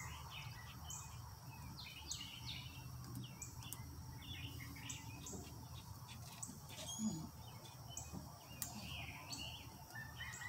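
Small birds chirping and calling repeatedly, with a short high note coming about once a second, over a faint steady low background rumble.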